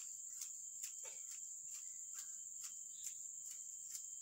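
Faint, steady high-pitched shrilling of insects such as crickets or cicadas, pulsing in regular ticks about two or three times a second.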